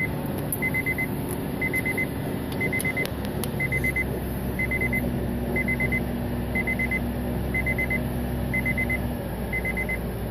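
An electronic warning beeper sounding a quick burst of four beeps about once a second, over a steady engine rumble. A few sharp clicks come about three seconds in.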